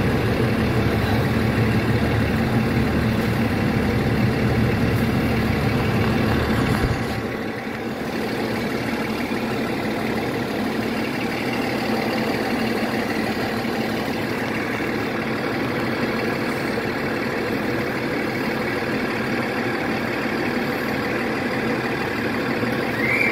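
Diesel passenger train's engine running steadily at rest. Its deep rumble falls away about seven seconds in, leaving a lighter, steady engine sound.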